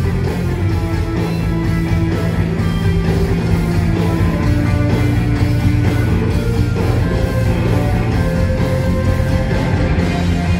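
Live rock band playing an instrumental passage: electric guitars holding sustained lead notes over bass guitar and drums, with no singing.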